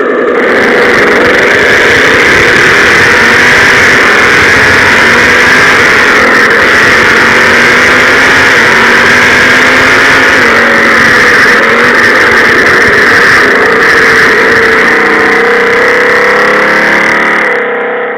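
Loud car engine sound, running continuously with its pitch drifting slowly up and down, then cutting off near the end.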